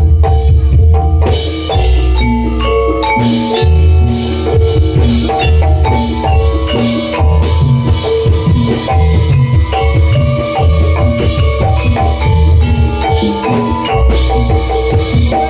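Gamelan-style accompaniment to a jathilan horse-trance dance: metallophones striking a fast repeating melody over drums and a heavy, steady low beat.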